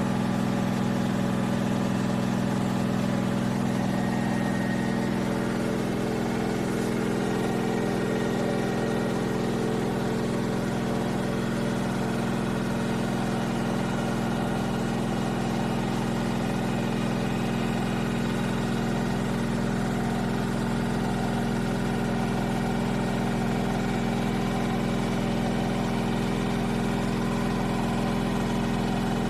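Steady low mechanical hum at one constant pitch, with no breaks.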